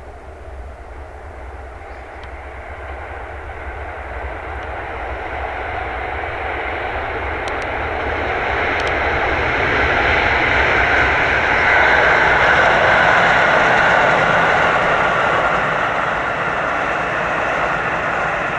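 Keisei electric train approaching on the line, its running noise growing steadily louder, peaking about two-thirds of the way through and easing slightly near the end.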